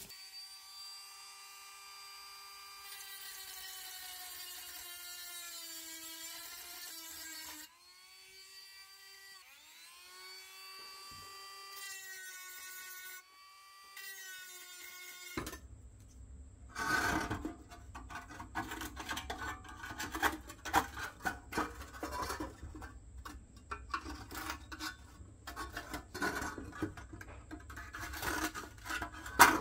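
A cordless rotary tool's small motor whining at speed, its pitch sagging as the bit bears on rusty sheet steel, breaking off twice. About halfway through it gives way to a screwdriver scraping and tapping at the rusty pressed-steel toy body in quick irregular clicks, with one sharp knock near the end.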